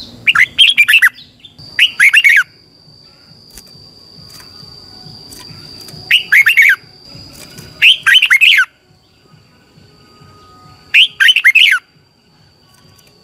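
Red-whiskered bulbul singing: five short, loud phrases of a few quick notes each, one every few seconds, with a longer pause between the second and third.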